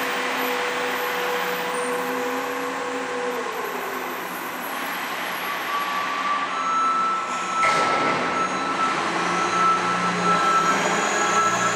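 Front-lift garbage truck's diesel engine running as the truck manoeuvres slowly under a concrete deck, with a steady whine that drops in pitch about three and a half seconds in and higher whines from halfway on. Near the eighth second comes a short, sharp release of brake air.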